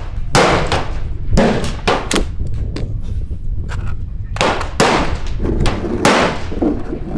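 Gunfire on a shooting range: a dozen or so sharp gunshots at irregular intervals, some in quick pairs, each with a short echo. A steady low rumble runs underneath.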